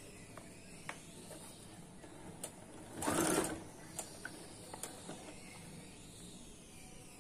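Domestic electric sewing machine running a short burst of stitches about three seconds in, with faint scattered clicks from the machine and fabric handling on either side.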